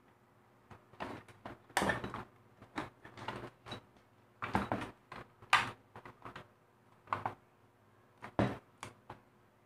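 A mini sewing machine's white plastic housing is handled and pried apart by hand, giving irregular plastic knocks, clicks and creaks. The loudest come about two seconds in and around five and a half seconds.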